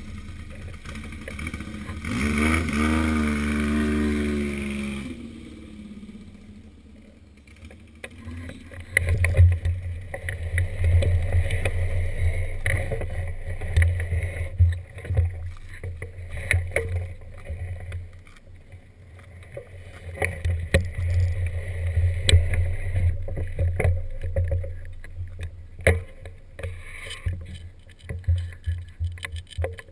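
Gusty wind rumble and buffeting on the microphone, with scattered clicks. About two seconds in, a motorcycle engine revs up and runs for about three seconds.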